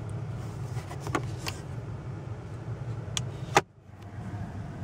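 Steady low hum inside the cabin of a Maybach 62 S, with a few light clicks from the interior fittings being handled. About three and a half seconds in, the sound cuts out abruptly for half a second, then the hum returns.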